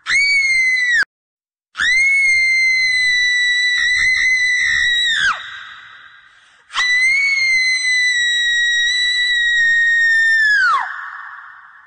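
Shrill, haunting screams, three in a row. The first is cut off after about a second. The next two are held steady for several seconds each, then drop in pitch at the end and fade away in a long echo.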